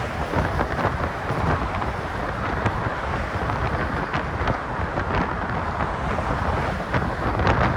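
Wind buffeting a phone's microphone that is partly covered by a sock: a steady rush with a heavy low rumble and scattered light ticks.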